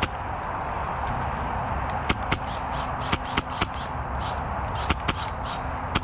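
Polarstar HPA-powered airsoft HK416 firing single shots, sharp cracks in short irregular clusters of two or three, over a steady outdoor hiss.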